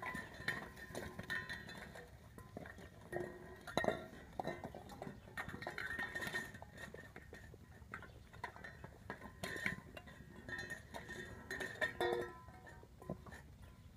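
Metal food bowls clinking and rattling in their stand as Boerboel puppies eat from them and push them about: irregular knocks, several with a brief metallic ring.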